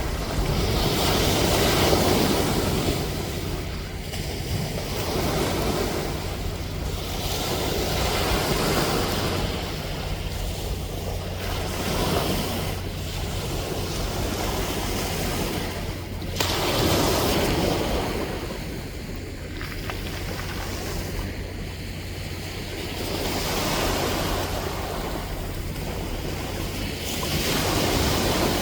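Sea waves breaking and washing ashore, the surf swelling and fading in slow surges every few seconds, with a steady low hum underneath.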